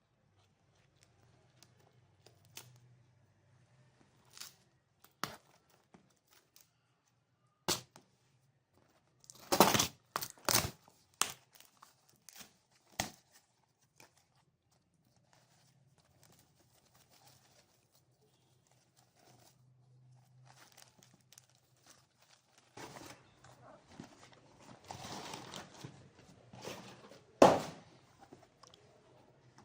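Product packaging being handled and opened by hand: scattered clicks and taps, a burst of tearing and knocking about ten seconds in, and a longer stretch of rustling and crinkling near the end, capped by one sharp knock.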